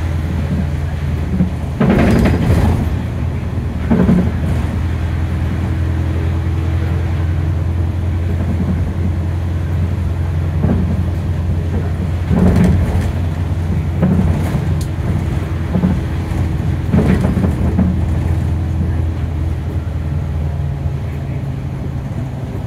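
Inside the cabin of a Nissan Diesel KC-UA460NSN city bus under way: its diesel engine runs with a steady low drone, shifting pitch a little twice. Short knocks and rattles come every second or two.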